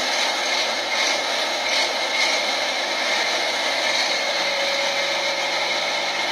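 Engine of a six-wheeled Ural truck running under load as it crawls over rocks, heard as a steady hissing drone, with a low hum coming up about four seconds in.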